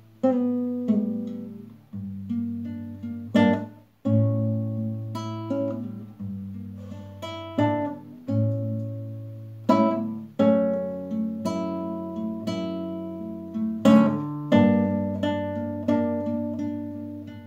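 Solo classical guitar played as an instrumental intro: picked notes and bass lines under a melody, with louder strummed chords now and then, each note ringing and fading.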